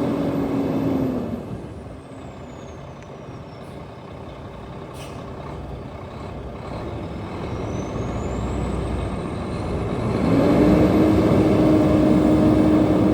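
A sawmill's motor running at speed, its steady hum dropping away about a second in, then building back up and settling at full speed again near the end.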